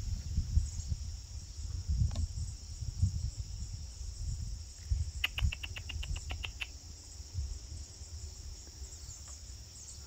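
Steady high-pitched chorus of insects such as crickets, over a low rumble on the microphone. About five seconds in, a quick series of about ten sharp chirps sounds over roughly a second and a half.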